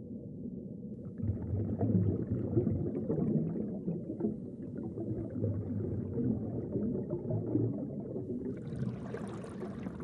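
Muffled underwater ambience on a coral reef: a low rumbling wash with a fine crackling texture that swells about a second in.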